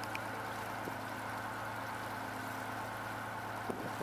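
Landing craft's inboard engine running steadily under way, a constant even hum.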